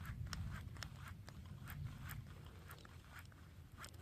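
Faint low wind rumble on the microphone, with a dozen or so light, irregular clicks and ticks.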